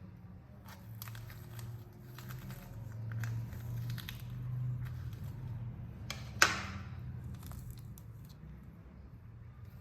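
Irregular rustling and crinkling handling noises, with one sharp knock about six and a half seconds in, over a steady low hum.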